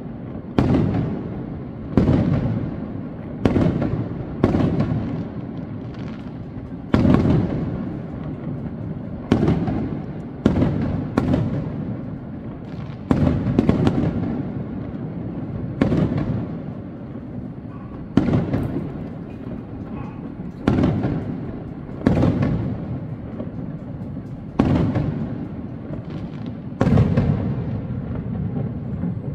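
Aerial fireworks shells bursting in a steady series, a sharp bang every one to two seconds, each followed by a rumbling echo that fades.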